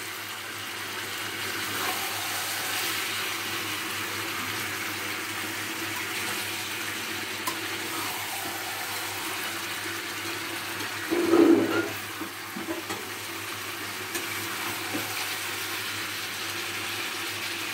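Chicken and potato curry sizzling and bubbling steadily in a pan on a gas burner as it is stirred with a spatula, the meat frying down in the juices and oil it has released. A brief louder low sound comes about eleven seconds in.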